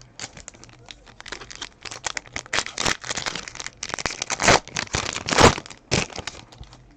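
Foil wrapper of a baseball card pack being torn open and crinkled: a run of crackling rustles, loudest about four and a half and five and a half seconds in.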